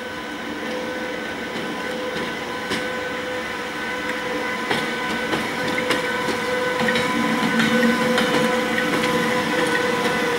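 British Rail Class 92 electric locomotive moving slowly past with a steady whine of several held tones from its traction equipment. There are a few sharp clicks of the wheels over rail joints and points, and the sound grows louder as the locomotive comes nearer.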